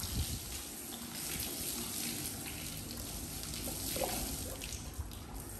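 Water trickling steadily from a soaked towel as it is twisted and wrung out.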